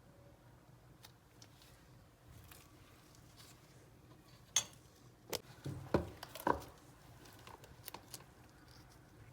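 Light clinks and taps of kitchen utensils against dishes or glass: a handful of sharp strikes clustered between about four and a half and seven seconds in, with a few fainter ones after.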